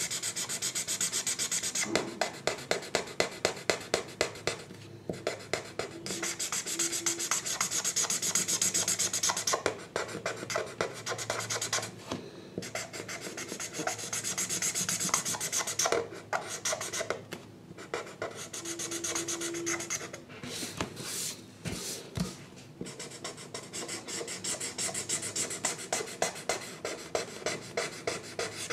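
A drawing tool scratching on paper in quick back-and-forth strokes, several a second, stopping briefly now and then.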